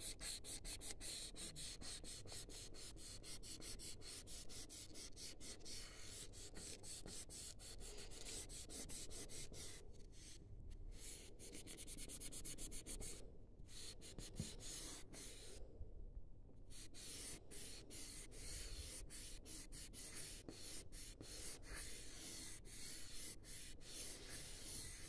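A rolled-up paper tissue rubbed back and forth over 2B graphite pencil shading on paper, blending it smooth: a faint, steady soft scraping with a few brief pauses around the middle.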